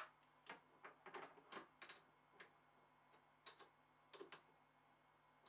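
Faint, irregular metal clicks and taps, about a dozen in the first four seconds or so, as a tool holder is fitted onto a lathe toolpost and the post's clamping lever is worked.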